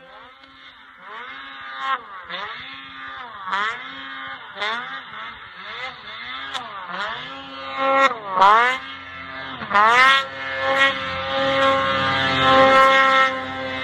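Snowmobile engine revving through deep powder, its pitch dipping and climbing again about once a second and growing louder as it nears, then holding high and steady near the end.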